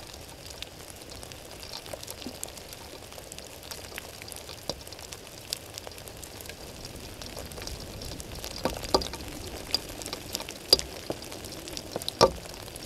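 Steady rain hissing, with single raindrops ticking sharply close by at irregular moments, more often in the second half and loudest near the end.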